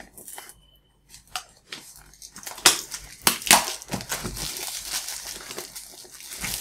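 Clear plastic shrink wrap being torn and peeled off a cardboard box, crinkling and crackling. It starts about a second and a half in, with a few sharp crackles about three seconds in, then keeps up a steady crinkle.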